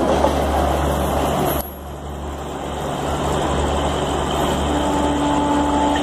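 Garib Rath Express passenger coaches running past on the rails. The noise drops suddenly as the last coach goes by about a second and a half in, then the rail noise of the receding train rises again, with a steady tone joining near the end.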